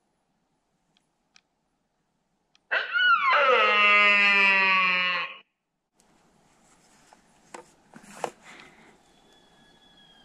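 Sika stag call blown close by by the hunter: one long call of about two and a half seconds, a quick rise and fall at the start, then held and slowly sinking in pitch. A couple of knocks follow, and near the end a much fainter call further off slides down in pitch, a distant sika stag answering.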